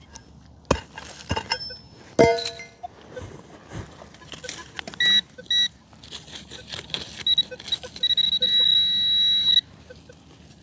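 A digging tool knocking and scraping in soil, the loudest a ringing knock about two seconds in. A metal detector then gives high electronic beeps: two short ones around five seconds and a steady held tone from about eight seconds, the signal of a metal target in the hole.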